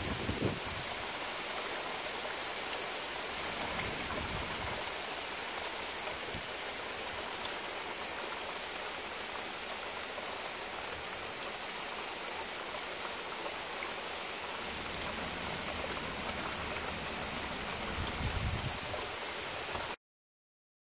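Steady rain falling, an even hiss, with a couple of brief low thumps near the start and near the end. The sound cuts off suddenly just before the end.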